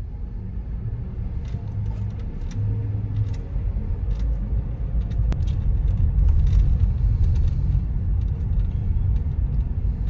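Car's road and engine rumble heard from inside the cabin while driving: a steady low rumble that grows somewhat louder about halfway through, with a few faint ticks.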